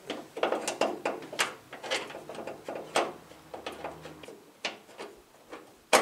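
Irregular metal clicks, knocks and scrapes as an aftermarket exterior door handle is tilted and worked out of its opening in a Suzuki Samurai door, with a sharp, louder click at the very end.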